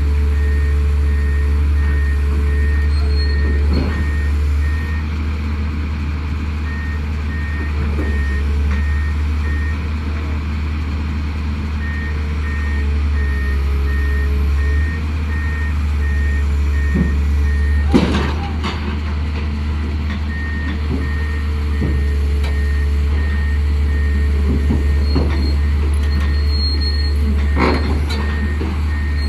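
Backhoe's diesel engine running steadily under load, with a reversing alarm beeping in runs of a few seconds that stop and start again. Occasional sharp metal clanks, the loudest about two-thirds of the way through, as the machine works.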